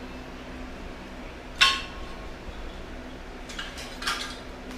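Metal car brake parts clanking as they are loaded onto a weight-machine bar: one sharp clank with a short ring about a second and a half in, then a few lighter clinks near the end.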